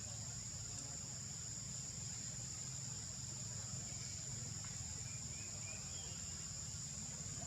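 Steady high-pitched insect chorus, with a low steady rumble underneath and a few faint chirps about six seconds in.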